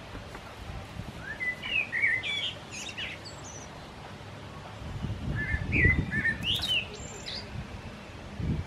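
A bird singing: two short runs of quick chirpy phrases, one about a second in and one past the middle. A low rumble comes with the second run.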